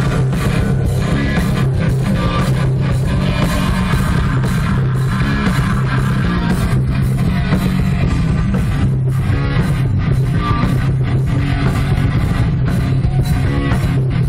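A metal band playing live at full volume: distorted electric guitars, bass and a pounding drum kit, heard loud and unbroken from the crowd near the stage.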